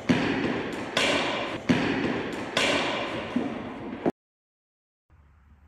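Sharp knocks in a large echoing indoor cricket hall, about one a second, each ringing on in a long reverberant tail. They stop abruptly about four seconds in, and after a short gap only faint room noise with a couple of light ticks remains.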